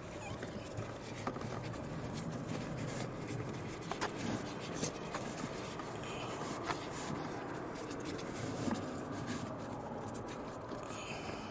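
Cabin pollen filter being pushed and slid up into its housing in a 2010 Mini Cooper, rubbing and scraping against the housing, with a few sharp clicks along the way.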